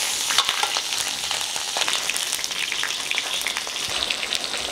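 Whole sea bass frying in hot oil in a wok: a steady sizzle with frequent small pops and spits, as it fries on its second side just after being turned with a spatula.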